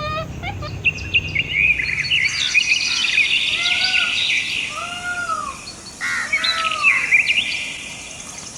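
Several birds chirping and singing together in quick high notes, with a lower arched call repeated four times about a second apart.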